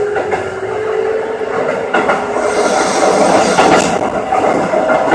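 Keikyu 600 series electric train running, its motor whine climbing slowly in pitch and then fading after about two seconds, with wheels clattering on the rails. A hiss swells in the middle and dies away near the end.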